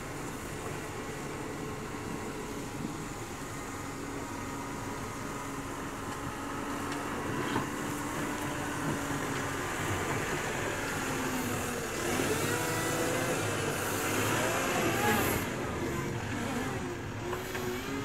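Komatsu wheel loader's diesel engine running under load while its front plow blade pushes heavy snow. Past the middle it grows a little louder, and a wavering whine that rises and falls in pitch sounds over it for a few seconds.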